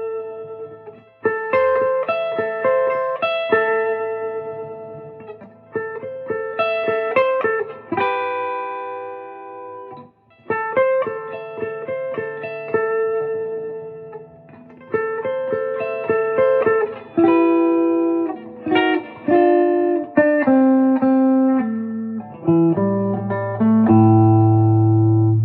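Electric guitar played through a Marshall JTM30 tube amp, freshly repaired: phrases of chords and single notes ringing out, with a brief pause about ten seconds in and a low note held loud near the end.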